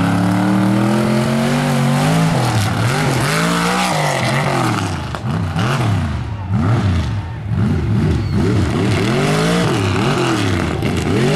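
Mega truck's engine revving hard, pitch climbing steadily for about four seconds, then revved up and down over and over, about three times every two seconds.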